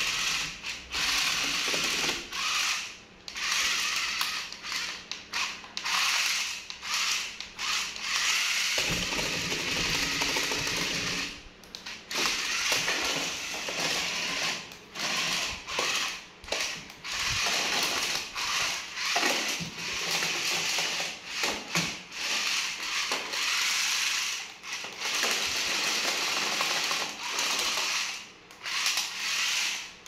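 Toy remote-control stunt car's small electric motors and plastic gearboxes whirring, starting and stopping in quick spurts as it is driven. There are a few brief pauses, one about three seconds in and a longer one near the middle.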